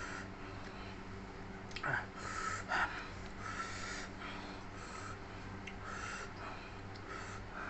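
A person eating, with short noisy breaths through the nose and mouth about once a second and a few sharp chewing clicks; the hard breathing comes from the heat of the raw bird's eye chilies being eaten.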